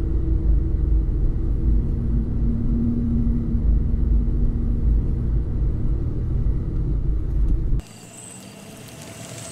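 Ambulance engine and road rumble while driving: a loud, steady low drone. Near the end it cuts off abruptly to a much quieter background with a faint high steady tone.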